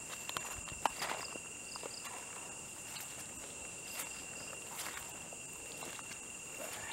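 Slow footsteps over grass and dry leaf litter, a few scattered crunches and snaps, the sharpest about a second in. Under them runs a steady high chirring of night insects with short repeated chirps.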